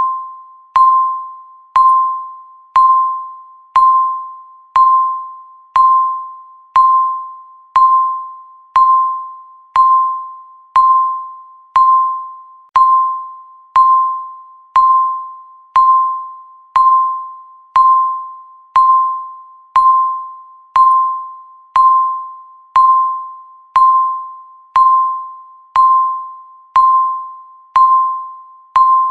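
Countdown timer beep sounding once every second, each a single tone that starts sharply and fades away before the next.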